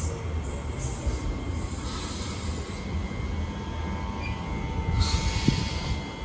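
New Intercity Fleet (Mariyung) electric train moving off from the platform: a steady low rumble with thin whining tones above it.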